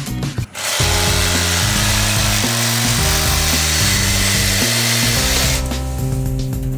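Compact cordless reciprocating saw cutting through 1.5-inch Schedule 40 PVC pipe, starting about half a second in and stopping about a second before the end, over background music.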